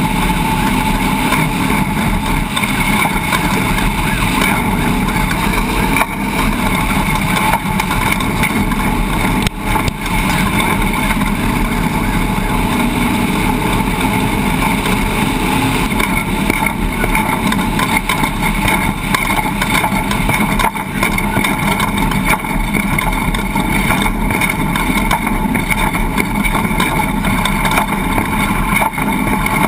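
A motor running steadily at a constant speed, with no change in pitch.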